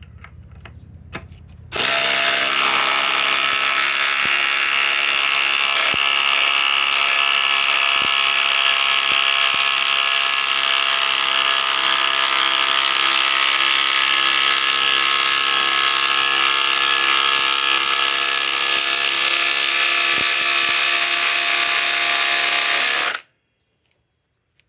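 Ryobi 4-mode cordless impact driver hammering steadily under heavy load as it drives a 10-inch power lag screw, starting about two seconds in, running for about twenty seconds and cutting off suddenly near the end.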